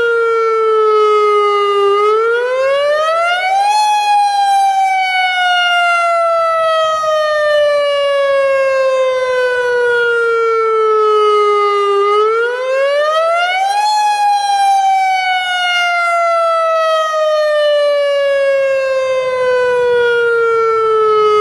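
Loud AHAB tsunami warning siren sounding its wail, the tone used for real tsunami evacuations. Twice, its pitch sweeps up quickly over about two seconds, then slides slowly down for about eight.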